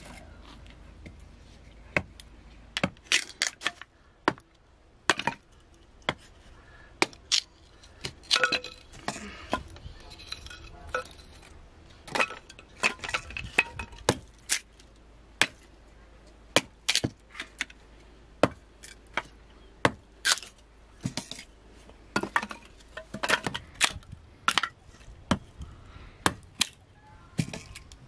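Irregular sharp clinks and knocks, often one or two a second and sometimes in quick clusters, from hand work with cooking utensils and dishes.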